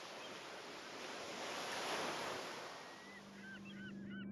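Sea waves washing, one swell rising and falling away. In the last second or so, a low steady hum and short bird-like chirps come in.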